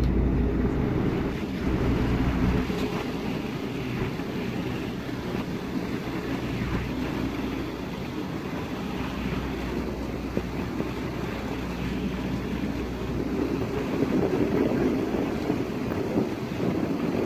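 A tour boat's motor running steadily at cruising speed, with water washing past the hull and wind buffeting the microphone.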